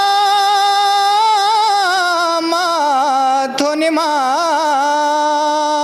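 A single voice singing a devotional song unaccompanied, holding long ornamented notes with a short breath about three and a half seconds in.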